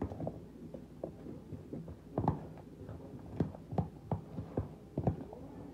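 A spoon stirring chopped fruit and cream in a plastic container, giving irregular soft knocks and thuds against the container.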